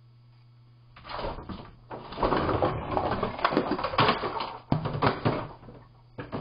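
A cat scrambling onto a counter and knocking things over: a low steady hum, then about a second in a few seconds of clattering and scraping knocks as a long grabber stick is knocked down, ending in a few separate knocks.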